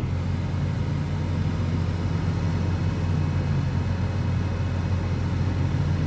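Case tractor's diesel engine running at a steady, even low pitch.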